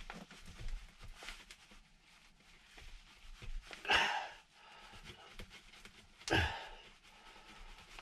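A person breathes out twice, loudly, about four and six and a half seconds in, like sighs. Under the breaths, faint scraping and rubbing as two-part Araldite epoxy is stirred on a piece of cardboard.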